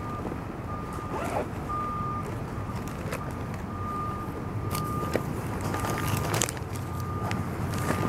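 Street ambience: a low, steady traffic rumble under an electronic beeper sounding a high tone about once a second, with a few scattered clicks.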